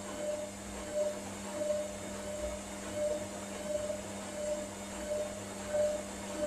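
Hotpoint Ariston Aqualtis washing machine in the final rinse of its wool programme, the motor humming steadily as it slowly turns the drum. A whine rises and falls evenly, about three swells every two seconds.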